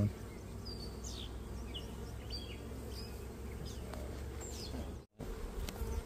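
Many honeybees buzzing around an opened hive: a steady, dense hum. It cuts out for a moment about five seconds in.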